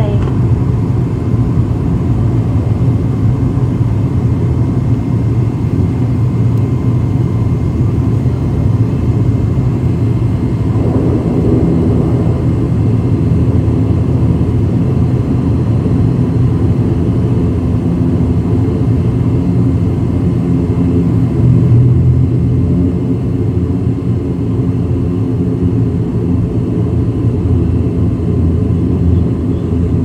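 ATR twin-turboprop airliner's engines and propellers running at taxi power, heard from inside the cabin: a steady low drone with a faint steady whine over it.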